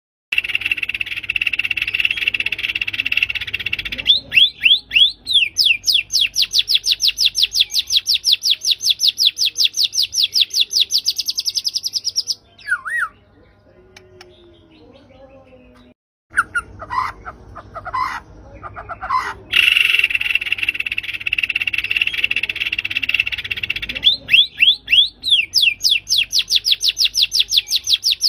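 White-rumped shama (murai batu) singing loud song bouts: a buzzy churring phrase, a few quick downward-swept whistles, then a long run of fast repeated notes at about seven a second. After a few seconds of lull with scattered notes, the same sequence comes round again.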